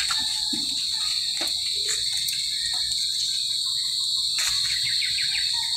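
Steady chorus of insects, a continuous high-pitched trill, with a few faint taps.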